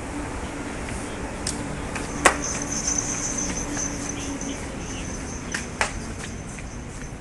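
A high, steady insect trill, typical of a cricket or cicada, comes in about two and a half seconds in over a low hum, with a few sharp clicks: one loud click about two seconds in and two more close together near the end.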